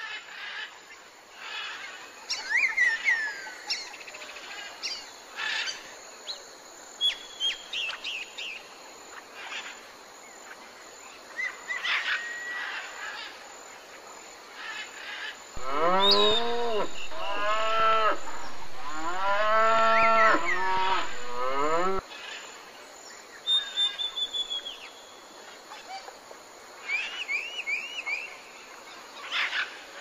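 Birds chirping and singing, then about halfway through a Highland cow mooing loudly for several seconds in long arching calls, starting and cutting off abruptly. The birdsong resumes after it.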